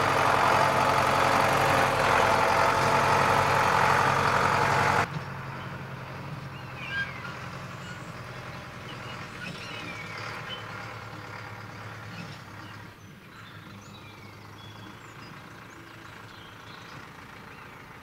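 Farm tractor engine running close by, cutting off abruptly about five seconds in. Then a much quieter stretch with a faint engine hum and scattered short, high bird calls that slide in pitch.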